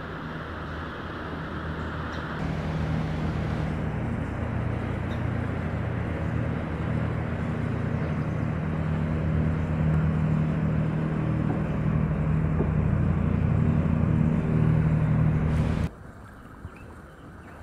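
A motor engine running with a steady low hum that grows gradually louder over about thirteen seconds, then cuts off suddenly near the end.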